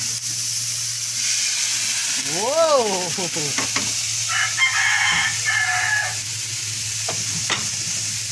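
Ground pork sizzling as it sautés in two frying pans, a steady hiss throughout, with a few light clicks. A rooster crows about two seconds in, and a higher crow follows around the middle.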